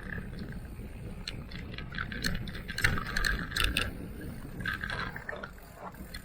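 E-mountain bike ridden over a rough trail: rattles, clicks and knocks from the bike, busiest about two to four seconds in, over a steady low rumble of wind and tyres on the microphone.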